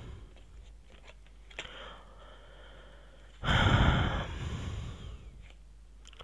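A woman's heavy sigh: one long, noisy breath out about three and a half seconds in, loud at first and fading over about a second and a half.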